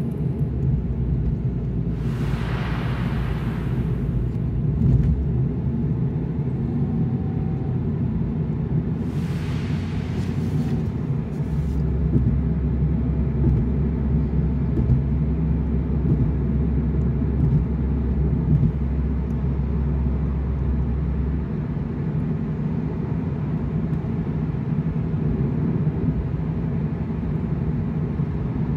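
Steady low rumble of a moving Audi car, heard from inside the cabin, with two brief hissing swells a couple of seconds and about nine seconds in. A deeper hum joins it from about twelve to twenty-one seconds in.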